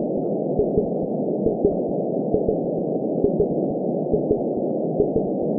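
Heartbeat with a muffled lub-dub double thump a little under once a second, over a steady whooshing womb-like rush.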